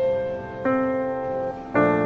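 Slow, gentle piano music: sustained chords that fade away, with a new chord struck about two-thirds of a second in and another near the end.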